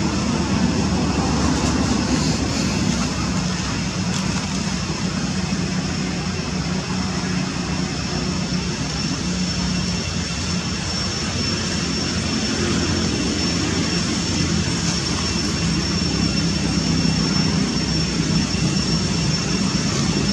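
Steady low engine drone, with a thin steady high tone running over it.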